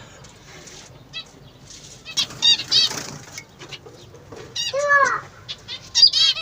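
Ornamental birds calling: bursts of rapid high chirps about two, five and six seconds in, with one lower, arching call near five seconds.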